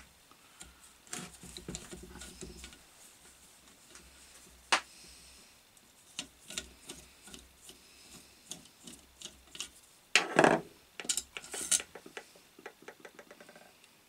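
Metal clicks and scraping as a hand tool unscrews the long steel through-bolts of an electric motor's end cover and a bolt is drawn out. There is a louder rattling scrape about ten seconds in, and a quick run of light ticks near the end.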